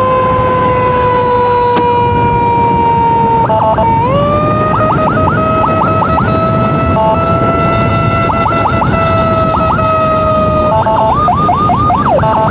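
Emergency siren sounding a held two-note wail that sags slightly, then steps up in pitch about four seconds in with quick rising chirps breaking in. Near the end it turns to a fast chirping warble, over steady wind and road rumble from riding.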